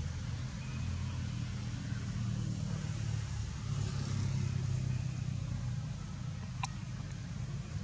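Steady low rumble of a motor vehicle engine running nearby, with a single sharp click near the end.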